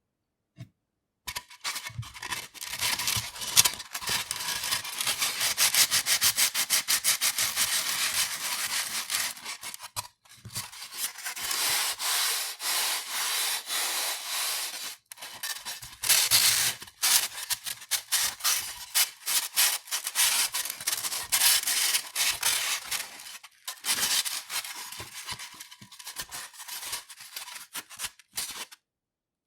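Pieces of polystyrene foam rubbed against each other: a dense, rapid squeaking and scratching with short pauses between passes.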